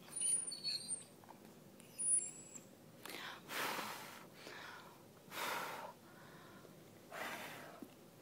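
Basset hound breathing and snuffling right against the microphone, a short noisy breath about every two seconds, with a few thin high squeaky whistles in the first couple of seconds.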